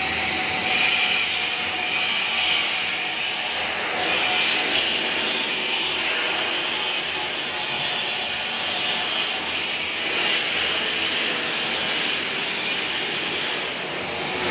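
Steady machinery noise with a strong hiss, swelling and easing slightly every few seconds.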